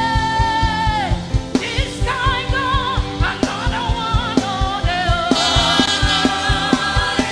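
Upbeat gospel worship music: a lead voice sings a wavering, held melody over a fast, steady drum beat.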